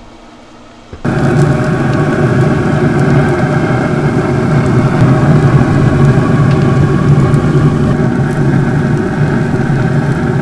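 Pellet grill's fan running: a steady, loud mechanical hum that starts suddenly about a second in and holds level.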